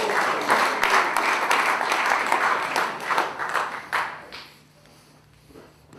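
Audience applauding, a dense patter of clapping that dies away about four and a half seconds in.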